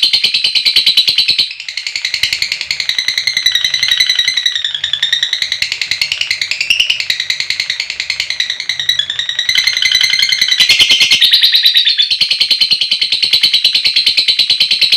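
Lovebird chattering in a long, rapid, high-pitched trill (the 'ngekek panjang' song), a fast run of even pulses that turns into a wavering warble for several seconds, then goes back to fast pulses near the end.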